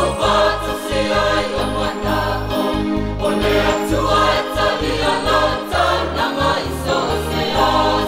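Music: a song with group singing over a bass line.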